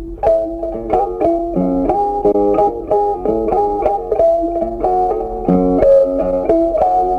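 Background music: a melody of plucked notes at a steady, brisk pace.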